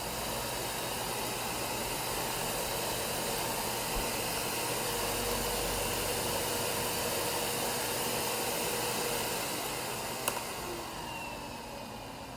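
Miele C2 canister vacuum's suction motor running quietly with a steady airy hiss. About ten seconds in a click is heard, and the motor's level and pitch then sink.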